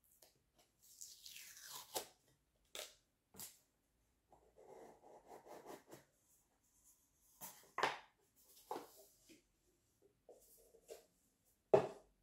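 Cardboard tube being opened by hand: the lid scrapes and slides, something inside rustles, and there are several short knocks of handled objects, the loudest just before the end as a glass jar candle is taken out.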